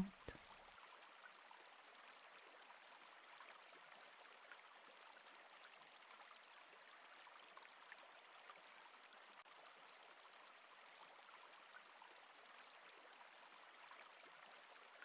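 Faint, steady murmur of running river water: a recorded stream flowing gently, with no breaks.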